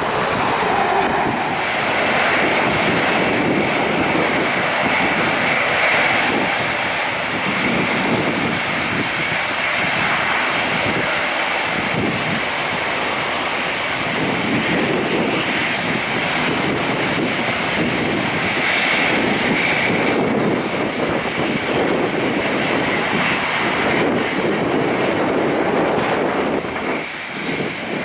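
Airbus A320's CFM56 turbofan engines running at low thrust as the airliner taxis, a steady jet noise with a constant high whine.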